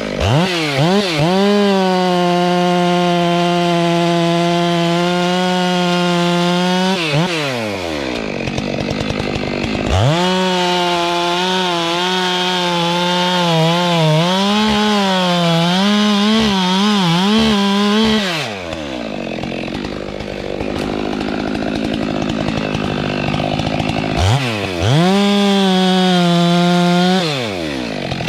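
Stihl MS 462 two-stroke chainsaw revved to full throttle three times, dropping back to idle between runs. During the middle run the pitch dips and wavers as the chain bites into wood.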